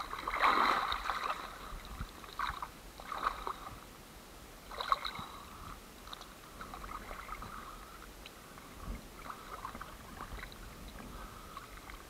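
Small waves slapping and sloshing against a camera bobbing at the water's surface, in irregular splashes, the loudest about half a second in and again about five seconds in.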